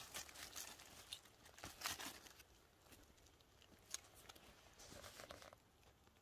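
Faint rustling and crackling of dry leaf litter and twigs on the forest floor, in a few short spells with light clicks between them.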